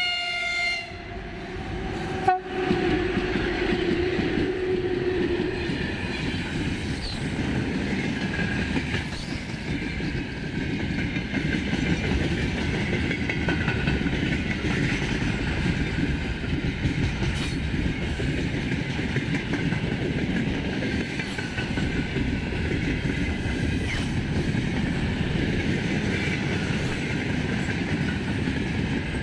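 A VL11M electric locomotive gives a short horn blast as it comes up, then passes at speed hauling a freight train of open-top wagons. A sharp crack comes a little over two seconds in, followed by a low hum for a few seconds. After that there is a steady rumble of wheels on rail with clickety-clack from the rail joints and rattling wagons.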